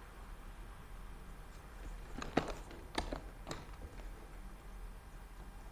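Three short, sharp clicks about half a second apart, the first the loudest, over a faint low hum.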